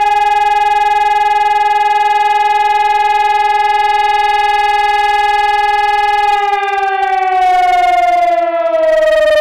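Electronic high-performance civil-defence siren sounding the fire-brigade alarm signal (Feueralarm) as a test. It holds a loud, steady tone, then starts to wind down in pitch about six seconds in.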